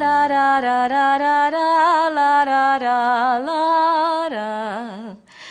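A single unaccompanied voice singing a melody line, moving in steps between held notes with vibrato. It ends about five seconds in.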